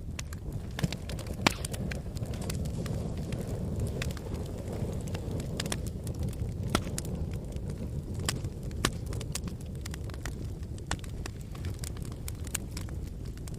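Fire crackling, with sharp irregular pops over a low steady rumble.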